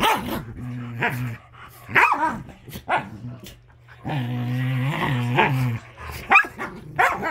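Several dogs play-fighting: short sharp barks and yips, with one drawn-out growl lasting about two seconds in the middle, then more barks near the end.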